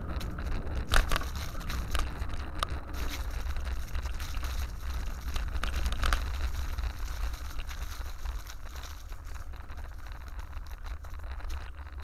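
Bicycle rolling over grass and dry fallen leaves: a crackle of leaves and scattered sharp clicks and knocks, the sharpest about a second in, over a steady low rumble of wind and bumps on the microphone.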